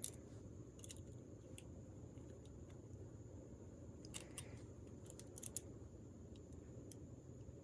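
Faint, scattered small clicks of multitool pliers working a bent wire hook, with a few slightly louder ones about four and five and a half seconds in, over a low steady background hum.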